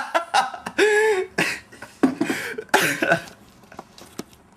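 A man laughing hard in coughing, breathy bursts with a few higher voiced whoops, dying down after about three seconds.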